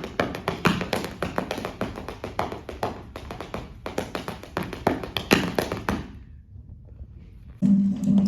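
Dancers' percussive footwork: a fast, uneven run of taps and thuds that stops about six seconds in. Music with a plucked guitar comes in near the end.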